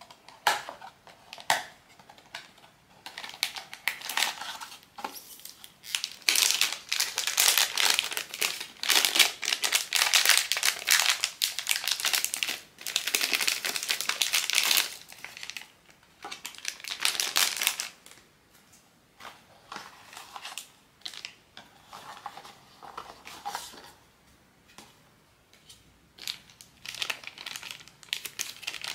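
Pop Mart blind-box packaging being handled and opened by hand, crinkling and tearing in irregular bursts. It is densest and loudest through the middle, then thins out to sparser rustles.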